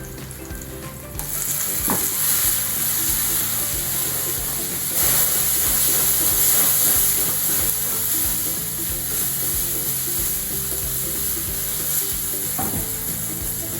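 Loud sizzling of chopped tomatoes frying in hot oil with onion and chilli in a pan; the sizzle starts about a second in and holds steady.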